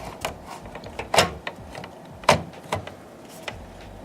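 Sharp clicks and light knocks of a motherboard being set down and shifted onto the metal standoffs inside a PC case, with the two loudest about a second and two seconds in.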